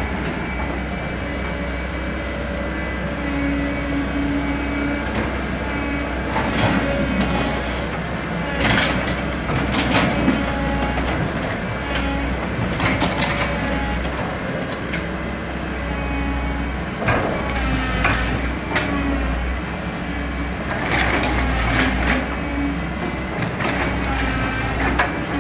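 CAT hydraulic crawler excavator working: its diesel engine runs steadily under load while the bucket digs and drags wet mud, with about ten clanks and scrapes of the steel bucket scattered through.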